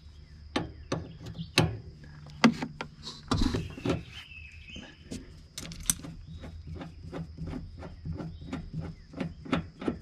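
A wrench clicking and knocking against the inverted flare fitting on an RV propane hose as the fitting is broken loose and unscrewed. Scattered clicks and a brief scrape come first, then a steady run of about three clicks a second in the second half.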